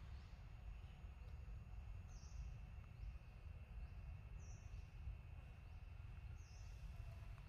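Faint outdoor ambience: a low rumble and a thin steady high tone, with short high falling chirps about once a second, three of them louder.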